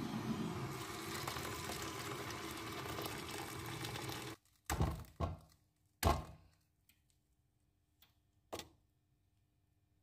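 A steady rushing noise that cuts off abruptly after about four seconds, then a few dull thuds and lighter clicks of onion halves and garlic cloves dropping onto dry red lentils in an aluminium pot, the loudest about six seconds in.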